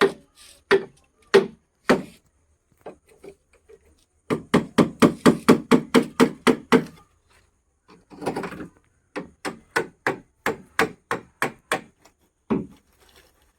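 Hammer blows on an old refrigerator's body as it is broken apart: a few spaced strikes, then two fast runs of rapid hammering with a short pause between them.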